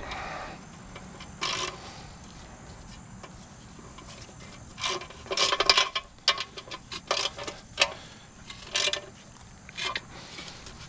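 Irregular metal clinks and clatters of tools and metal parts being handled, one clink about a second and a half in, then bunched rattles from about five to eight seconds and a few more near the end, some with a short ring.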